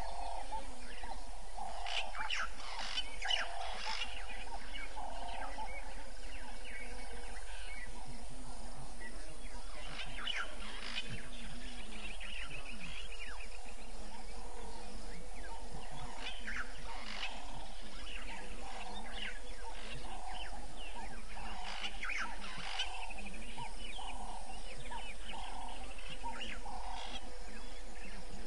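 Evening bush ambience: birds chirping and calling in short clusters over a call that repeats about once a second.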